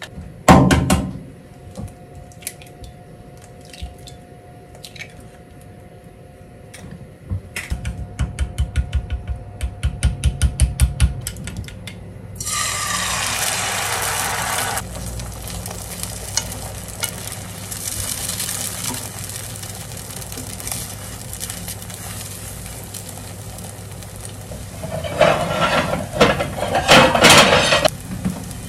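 Beaten egg poured into hot oil in a frying pan: a sudden loud sizzle about twelve seconds in that settles into a steady frying hiss. Before it comes a quick rhythmic clicking, about six strokes a second, like eggs being beaten in a bowl. Near the end there is loud scraping and clattering as the egg is stirred around the pan.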